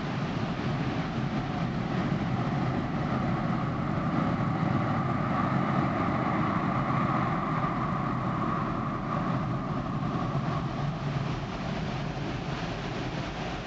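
A vehicle passing, growing louder over several seconds with a steady whine mid-way and then fading away, over a constant rush of wind and water.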